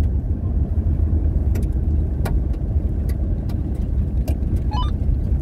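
Four-wheel drive running along a gravel road, heard from inside the cab: a steady low rumble of engine and tyres on gravel, with a few sharp clicks.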